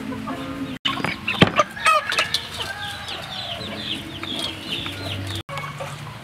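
Chickens clucking, with a long run of quick, high chirping calls through the middle. A single sharp knock comes about one and a half seconds in.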